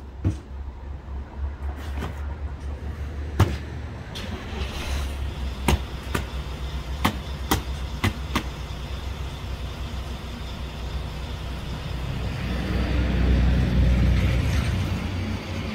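A vehicle engine's steady low rumble that swells louder about three-quarters of the way in, then eases. Over it come a series of sharp knocks and thuds from cardboard boxes of small appliances being shifted and set down on a stack.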